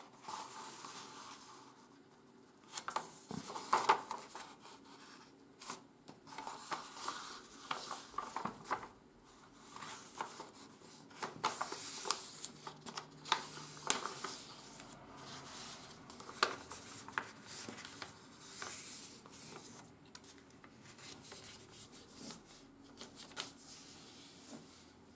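A sheet of 80 g/m² office paper being folded and creased by hand, sliding on a wooden tabletop: irregular rustling and rubbing with sharp crackles as the fold is pressed flat.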